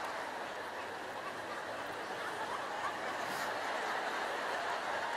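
A large audience laughing and chuckling, a steady wash of crowd noise.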